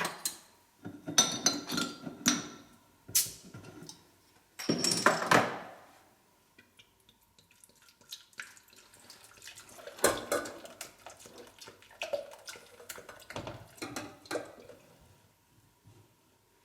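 Pots and kitchen utensils clattering and clinking on a stove, with a second-long stretch of liquid pouring about five seconds in.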